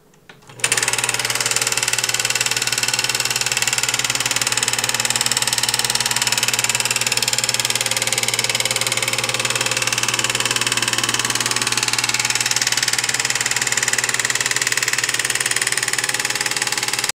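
Kodak Instamatic 8 mm film projector started with a couple of clicks, then running: its motor and film-advance mechanism give a loud, steady, rapid clatter over a hum.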